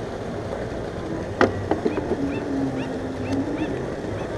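Steady wind and water noise, with two sharp clicks about a second and a half in, followed by a run of short high chirps and a low held tone.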